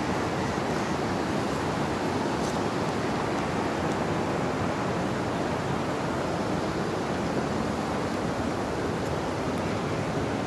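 Fast, shallow mountain river rushing over boulders and rocks: a steady, even rush of water.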